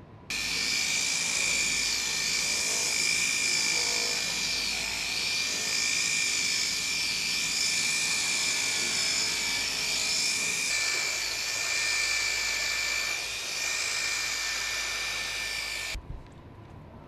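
High-speed rotary polisher running with a steady high-pitched whine and hiss as its buffing pad works along a metal trim strip. It starts suddenly and cuts off suddenly near the end.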